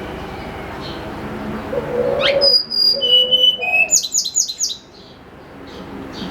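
Tledekan gunung songbird singing one phrase of about two and a half seconds, starting about two seconds in: a rising whistle, then clear held whistled notes at several pitches, ending in a quick run of about five short notes.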